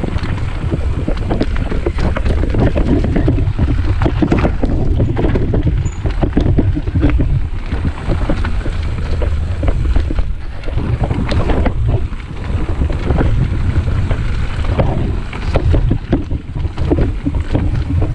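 Mountain bike riding down a dirt singletrack: wind buffeting the action camera's microphone over a steady rumble of tyres on dirt, with many small rattles and knocks from the bike jolting over the rough trail.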